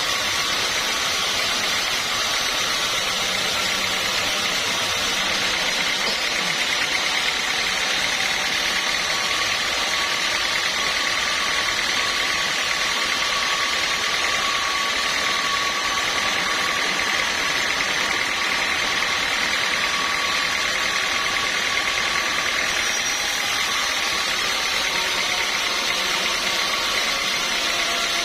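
Sawmill machinery running steadily: a continuous mechanical noise with an even, high whine.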